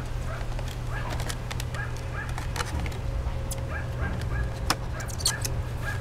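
Thin plastic water jug crackling and clicking in the hands as a phone is pushed into it, over a steady low hum.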